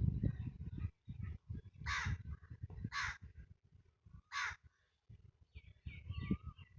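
A crow cawing three times, about a second apart. Smaller birds chirp near the end, over a low, uneven rumble.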